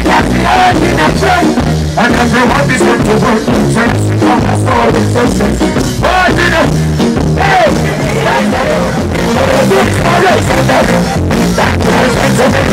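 Live reggae-dancehall music played loud through a PA, with a heavy repeating bass line and a vocalist singing into a microphone over it.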